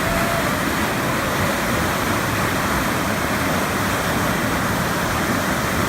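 Steady loud rush of the Temperance River's falls, fast water running through the gorge.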